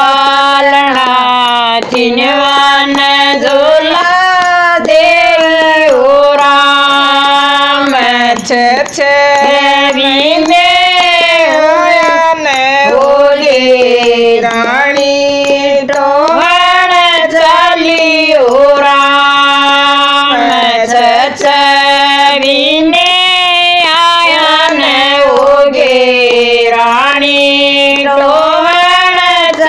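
Women singing a Haryanvi devotional bhajan in a folk melody, with long held notes and sliding ornaments between them.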